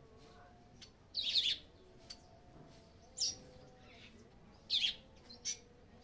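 A weaver bird calling at its woven nest: four short, high chattering calls, the first and third a little longer and louder than the others.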